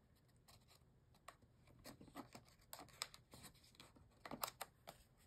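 Faint scattered clicks and scrapes of a paper craft tag and a small metal brad being handled and pressed with a flat tool.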